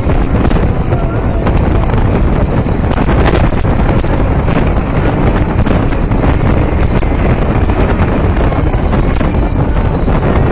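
Heavy wind buffeting on a microphone mounted outside a moving car, a loud steady rush with constant small gusts, over the car's road and engine noise.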